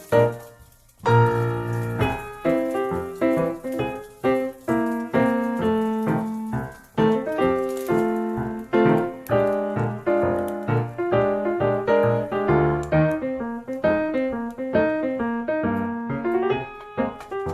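Background piano music, a melody of many quick notes, resuming after a break of about a second at the start.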